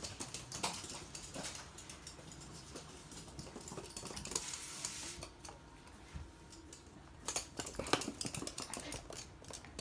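Irregular light clicking and patter from toy poodles' claws as the dogs scamper and play, busiest near the end, with a soft rustle about halfway through.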